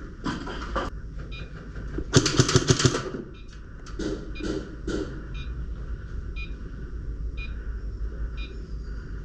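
Airsoft guns firing: a short burst under a second in, then a louder, longer rapid burst about two seconds in, followed by a few scattered single shots.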